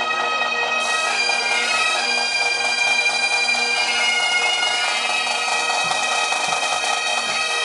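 Pipe band playing: several bagpipes sounding a melody over their steady drones.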